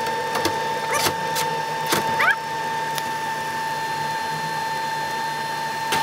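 TIG welder working on a 316 stainless steel exhaust merge collector: a steady high-pitched whine, with a few sharp clicks about a second apart in the first half.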